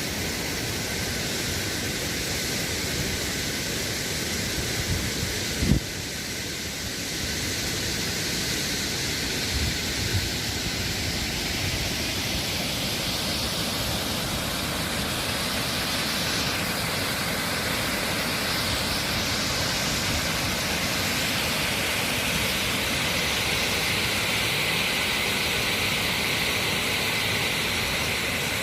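Steady rush of a waterfall, even and unbroken, with a brief thump about six seconds in.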